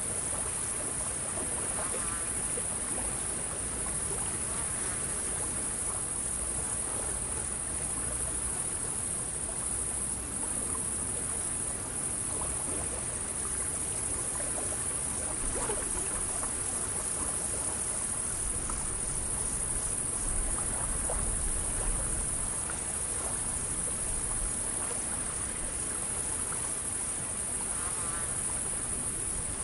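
Insects buzzing steadily over an even, soft background hiss, as in a summer outdoor ambience bed.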